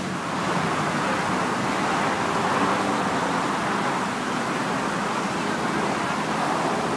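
Steady outdoor city ambience: a continuous rushing noise with no distinct events, growing slightly louder about half a second in.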